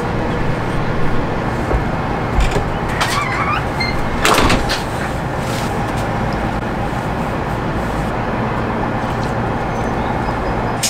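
Steady outdoor road-traffic rumble, with a brief louder noise about four seconds in.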